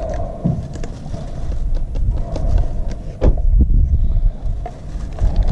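Plastic exploding-target jars and their screw lids being handled, clicking and knocking, with one sharper knock about three seconds in, over a steady low rumble and hum.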